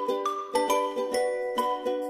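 Background music: a light melody of short, bell-like struck notes in a steady rhythm, a new note about every half second.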